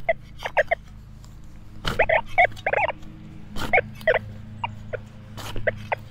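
Metal detector giving a string of short pitched target tones and chirps as the coil sweeps, with a few sharp clicks in between.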